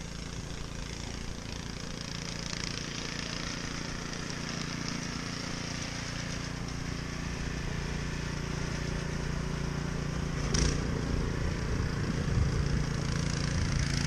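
Gas snowblower engine running steadily as it throws snow, growing gradually louder.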